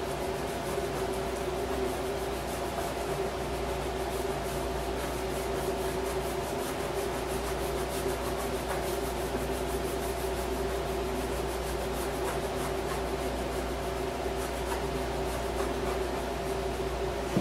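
Fingers rubbing firmly over a vinyl decal's transfer tape on a plastic side panel, pressing the graphic's letters down so every corner sticks, in a steady scratchy rhythm. A steady low hum runs underneath.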